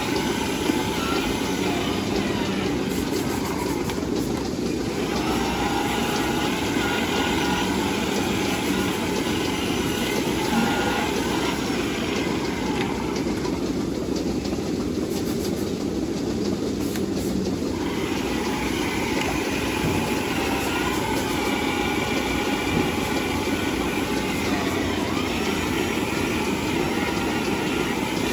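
Milking parlour machinery running with a steady low hum and hiss while milking clusters are attached to the cows.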